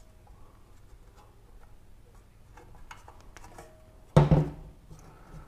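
Faint small clicks of rubber grommets being worked into a sheet-metal intake heatshield, then one sudden loud knock about four seconds in as the metal panel is handled.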